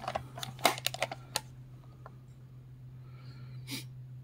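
Plastic clicks and knocks from handling a Toshiba LT 310 MAR portable cassette player: a quick run of clicks in the first second and a half, then one more near the end.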